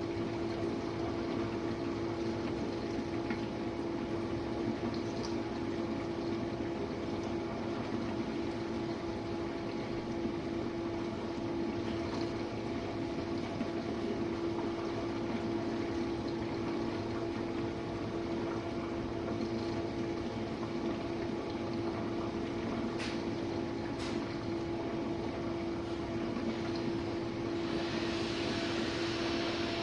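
Jenn-Air dishwasher running a wash cycle: a steady pump-motor hum under the hiss of water spraying inside the tub. Two light clicks come late on, and a brighter, steady hiss joins near the end.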